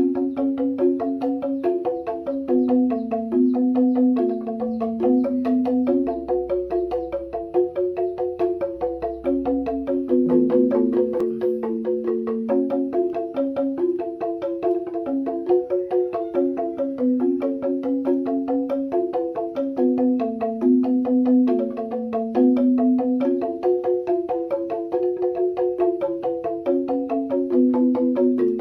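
Background music: a melodic tune with mallet-like percussion notes over a bass line, in a steady rhythm.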